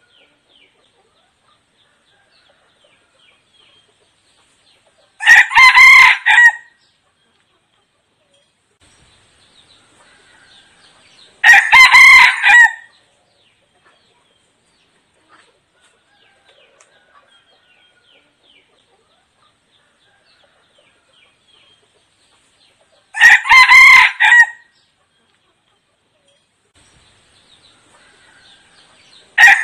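A decoy red junglefowl rooster crowing. It gives short, clipped crows of about a second and a half each: three in full and a fourth starting at the very end. Faint chirps and clucks come in between.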